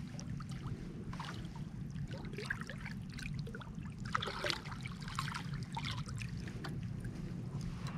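Irregular small splashes and trickling of river water at the bank where a hooked Wels catfish is being brought in to be landed, over a steady low rumble.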